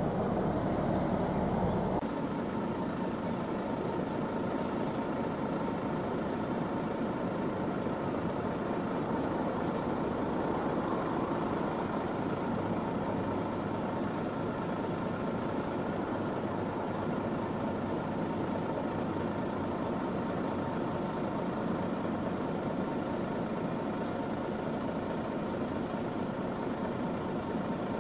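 Heavy haulage truck engines idling steadily. About two seconds in, the deepest part of the drone drops away, and the idling carries on evenly after that.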